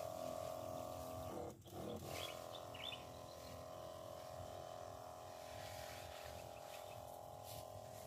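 Electric backpack sprayer's pump buzzing steadily with a fixed pitch. It cuts out briefly about one and a half seconds in, then runs on.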